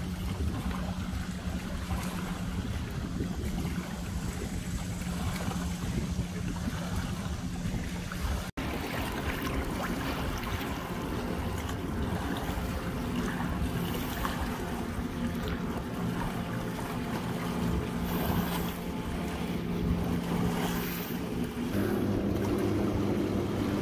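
Wind buffeting the microphone on open water, with a steady low motor hum from a boat underneath that shifts pitch a couple of times.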